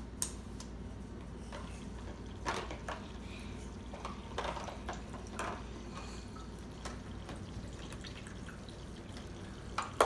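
Water dripping and splashing in a toy sink with a running-water faucet, with scattered small knocks of plastic dishes, at irregular intervals.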